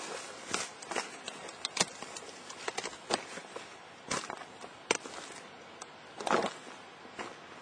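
Crackles and rustles of someone walking through dry grass and brush while handling the camera, with scattered sharp clicks and one louder, longer rustle about six seconds in.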